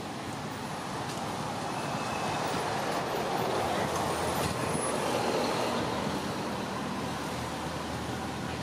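Steady rumble of passing motor traffic, swelling a little louder in the middle and easing off toward the end.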